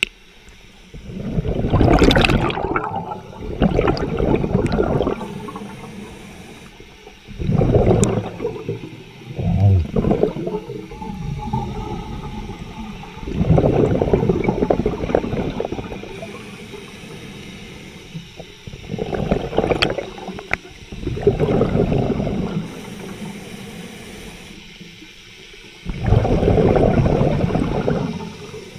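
Scuba diver's exhaled bubbles gurgling up past an underwater camera in bursts of one to three seconds, about eight times, each exhalation a few seconds after the last.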